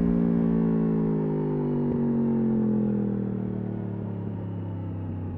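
Yamaha R1 RN22's crossplane inline-four with an Akrapovič exhaust decelerating off the throttle: the engine note falls slowly and steadily in pitch and grows quieter.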